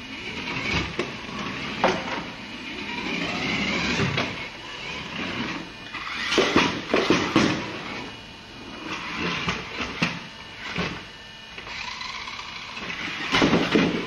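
Small electric motor of a remote control car whining in uneven spurts that rise and fall in pitch as the car is driven and steered, with scraping and sharp knocks and clatter as it moves about.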